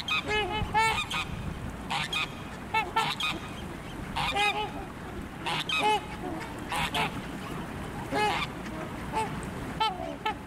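Swans honking on open water, short calls in quick clusters repeating every second or so, over a steady background hiss.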